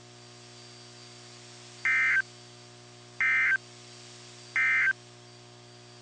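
NOAA Weather Radio Emergency Alert System end-of-message signal: three short bursts of data tones, about a second and a half apart, marking the end of the alert. A faint steady low hum runs underneath.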